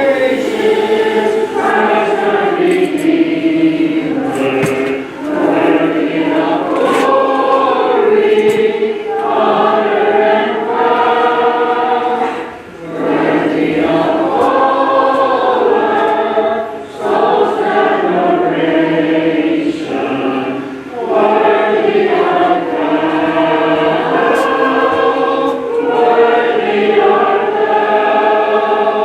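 Congregation singing a hymn a cappella, many voices in parts, in long sung lines with brief pauses for breath between them.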